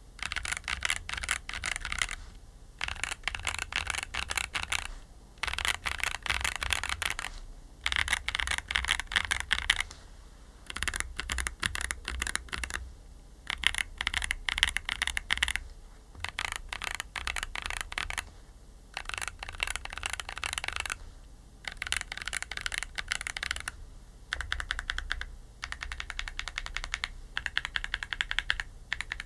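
Typing on a MonsGeek M1 aluminium mechanical keyboard with Akko Creamy Purple Pro tactile switches and PBT cherry-profile keycaps. Rapid keystrokes come in runs of two to three seconds with brief pauses between.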